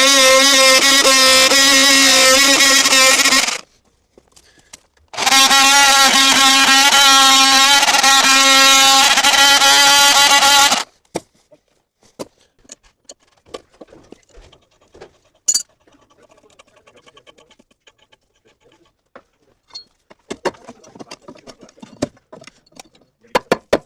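A handheld power cutting tool runs at high speed with a steady whine in two long runs of about four and six seconds, each stopping abruptly. Afterwards there are only light clicks and taps of handling.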